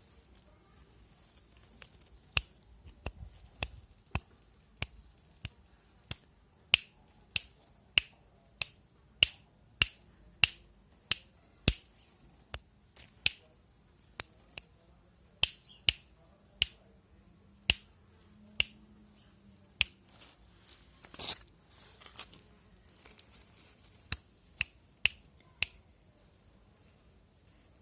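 A long run of sharp single clicks or snaps, roughly one every half second to second, with a short break about two-thirds of the way through.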